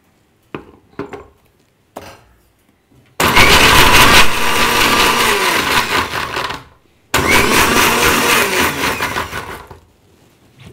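Electric mixer grinder with a steel jar blending tender coconut pulp with coconut water, run in two bursts of about three seconds each, each run winding down as the motor is switched off. A few light clicks of the jar and lid being set come before the first burst.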